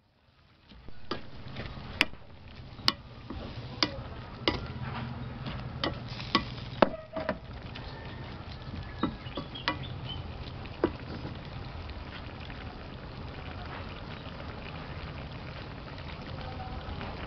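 Stir-fried chicken and vegetables in a wok: a ladle knocks and scrapes sharply against the pan a dozen or so times in the first ten seconds. Underneath is a steady sizzle of the simmering sauce, which carries on alone after that.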